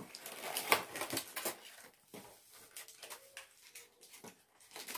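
Eating baklava: a fork clicking and scraping in a paper dessert cup, with chewing and mouth noises. Short irregular clicks come thickly at first, then thin out.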